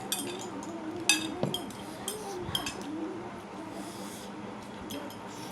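Tableware clinking a few times during eating, with sharp clinks and the loudest about a second in.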